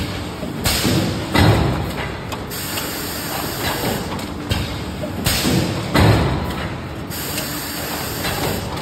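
Plastic thermoforming machine cycling: air hissing in two long spells, each with a heavy thud of the forming press, about a second and a half in and again about six seconds in.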